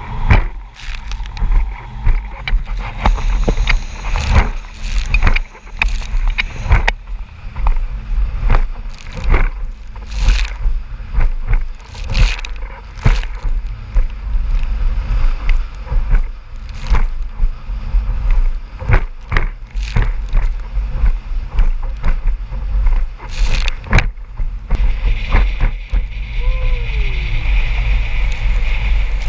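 Small boat's hull slapping and banging over wind chop at speed, irregular hard knocks about a second apart over a steady low rumble. Near the end the knocks ease into a steadier rush of water and wind.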